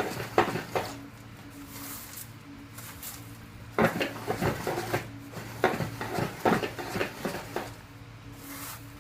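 Metal tool scraping and knocking in groups of quick strokes, typical of ash being raked or shovelled out of the sawmill's firebox, over a steady low hum.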